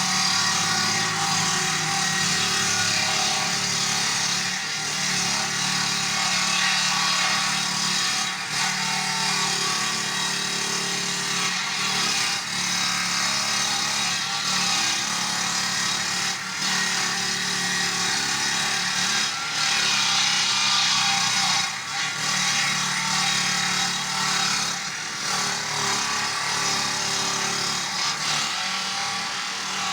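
Chainsaw running and cutting through wood, its engine note steady, with a few short dips in level as the cut goes on.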